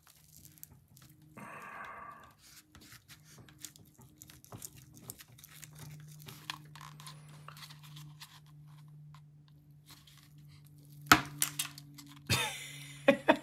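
Folding knife blade cutting into small pieces of hard plastic: scattered small clicks and a brief scrape, then a sharp snap about eleven seconds in and a short, louder crunch a second later as the plastic gives way, followed by a few clicks.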